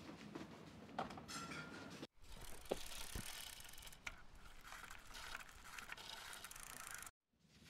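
Faint clicking from a small preset 5 Nm torque wrench turned on a bicycle seatpost clamp bolt, with one click about a second in, the kind this tool gives when the set torque is reached. Then low room tone.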